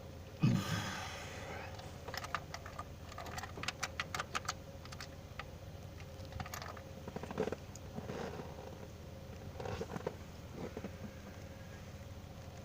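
A thump about half a second in, then a run of short metallic clicks and clinks, like hand tools being rummaged through in a car's tool kit.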